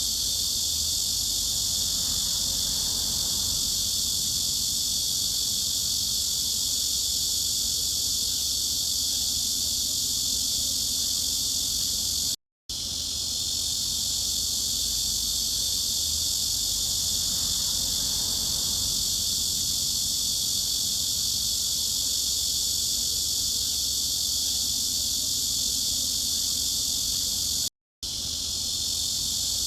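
Dense cicada chorus, a continuous, even high-pitched buzz. The sound cuts out for a split second twice, about fifteen seconds apart, where the looped recording restarts.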